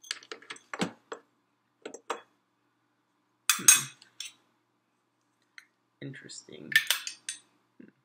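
Small stainless-steel espresso-machine parts clinking and rattling against each other as they are unpacked and handled. There are a run of light clicks at first, then a louder pair of ringing metallic clinks a few seconds in, and another cluster near the end.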